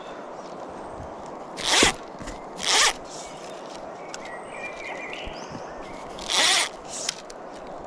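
Click-and-pawl fly reel buzzing as fly line is pulled off it in three short zipping pulls, two close together about two seconds in and one more about six seconds in.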